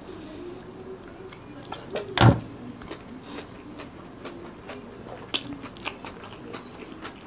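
Close-miked eating by hand: fingers working rice on a plate, then chewing a mouthful of rice and crispy fried anchovies, with many small wet clicks and crunches. A single louder knock comes about two seconds in.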